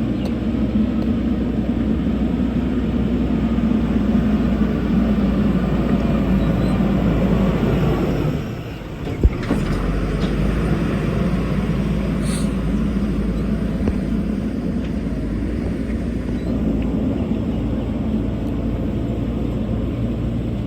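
JCB backhoe loader's diesel engine running steadily under work. It eases off briefly about eight seconds in, with a single short knock just after.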